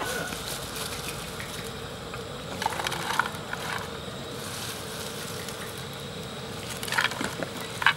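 Crisp deep-fried crickets being tipped from a metal strainer onto a plate: a short, dry, crunchy rattle about three seconds in and again near the end. A faint steady hum runs underneath.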